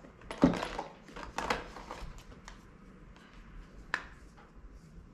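Make-up items being handled on a table: a sharp click about half a second in, then a few lighter clicks and rustles.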